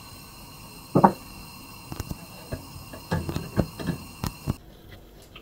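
Quiet kitchen background: a faint steady electrical whine and hum, with a few light knocks and taps, the clearest about a second in and several more in the last couple of seconds. The whine cuts off shortly before the end.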